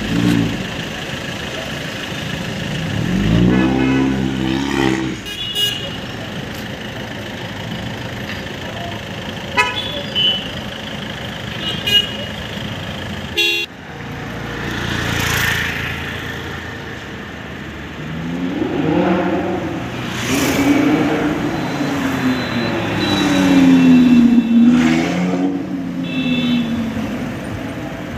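Street traffic: car engines revving as they drive past, rising and falling in pitch, with several short horn toots. The loudest pass comes near the end.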